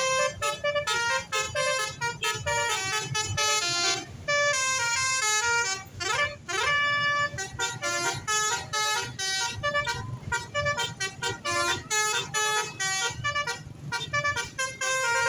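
Bus telolet basuri horn playing a fast melody of short, changing tooting notes, with a sliding note about six seconds in, over a low rumble.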